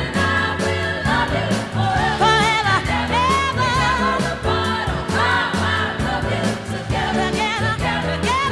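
A song playing: sung vocals with backing choir voices over steady bass notes and a beat.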